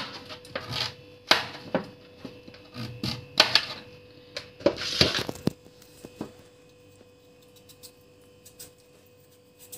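Kitchen knife chopping pumpkin on a wooden cutting board: a quick run of sharp knocks and scrapes for about the first five seconds. Then it goes quiet but for a few faint ticks as a chunk is peeled in the hand with the knife, over a faint steady hum.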